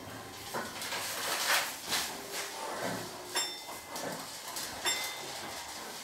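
Scattered clicks and knocks, with a few faint high pings, from a Keio 7000-series train rolling slowly, heard from the driver's cab.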